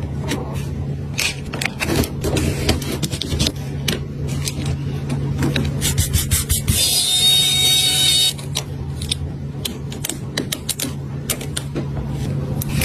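Small tools clicking and tapping on an iPhone during a battery replacement: a run of irregular sharp clicks over a steady low hum, with a burst of hissing about seven seconds in.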